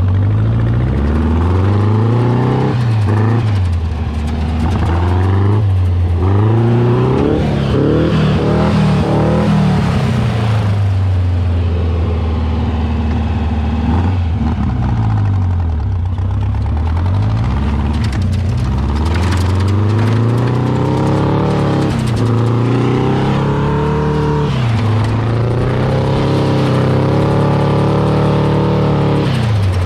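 A vehicle engine being driven under power, its note climbing and dropping again and again as it accelerates, shifts and slows.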